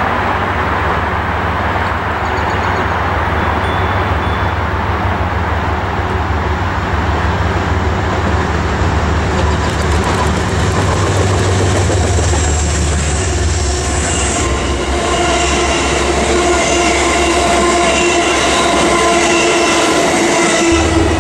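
Amtrak passenger train led by a GE Genesis locomotive approaching and passing close by, a steady low rumble of locomotive and wheels on rails. About two-thirds of the way through, a steady whine of several high tones joins in and grows as the train comes alongside.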